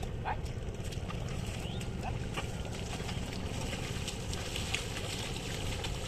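Bullocks' hooves and a plough squelching and splashing through flooded paddy mud, under steady wind rumble on the microphone.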